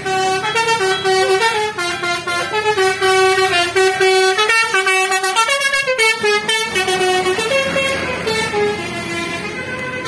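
A tourist bus's basuri (telolet) musical horn playing a loud tune of quick, stepping notes. The tune blurs and eases off a little in the last couple of seconds.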